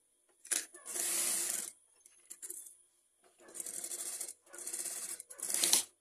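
Sewing machine stitching in six short runs with brief pauses between them, the last run the loudest; a faint high whine carries on between runs.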